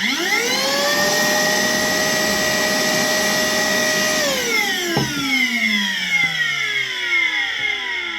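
Worx WX031 cordless brushless wet and dry vacuum switched on. Its motor spins up to a steady high whine within about a second and runs for about three seconds. It then cuts off and winds down in a long falling whine, with a single click about five seconds in.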